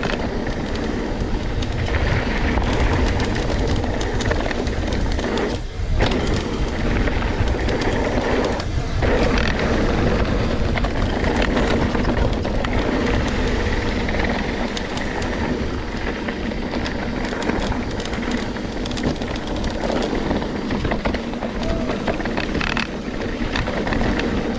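Trek Slash 9.8 full-suspension mountain bike ridden fast down a dirt trail: a steady rumble and rattle of tyres and frame over rough ground, with many small knocks and clatters. The noise drops briefly twice, about six and nine seconds in.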